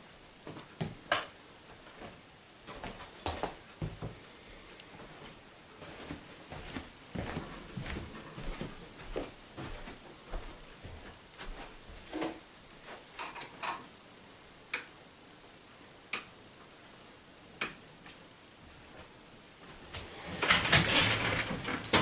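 Scattered light knocks and clicks of someone moving about a room and handling things, with a louder stretch of clattering and rustling near the end.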